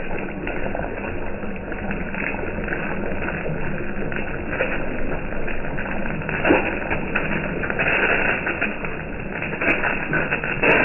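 Egg frying in hot oil on a flat griddle: a steady sizzle with fine crackling pops.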